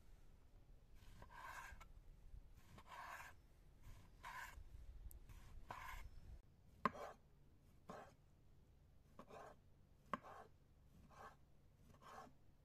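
Faint sound of a chef's knife slicing through raw lamb liver on a stone countertop. There are four drawn slicing strokes in the first half, then about six sharper taps of the blade on the stone, roughly one a second.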